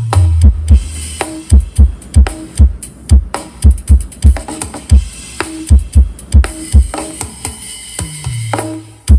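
Dance music with a steady, hard kick-drum beat and deep bass played loud through MD18 subwoofer cabinets; a bass note slides down at the start and again near the end.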